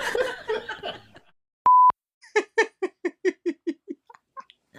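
Laughter trailing off, then a short, steady electronic beep, then a quick run of about ten even "ha" laughs.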